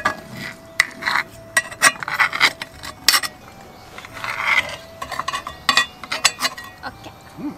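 Cutlery and dishes clinking and scraping during a meal: a string of irregular sharp clicks and knocks, with a couple of short scraping passes in between.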